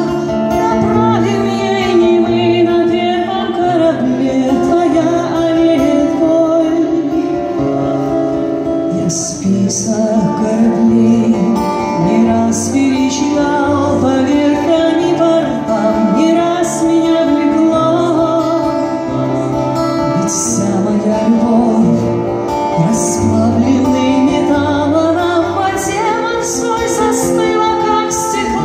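A woman singing a slow song in Russian to a single acoustic guitar, performed live in a concert hall.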